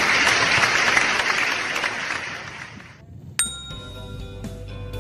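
Applause-like noise fading out over about three seconds, then a sharp ding about three and a half seconds in that rings on into a bright bell-like chime tune: added editing sound effects.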